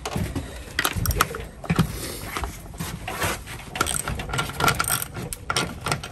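Ratchet spanner with a large socket winding a nut down onto a washer on a bolt through timber, the pawl clicking in quick irregular runs as the nut is nipped tight and the washer compresses into the wood.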